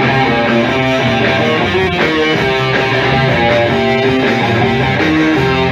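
Live rock band playing, with guitar to the fore and sustained notes over a full band.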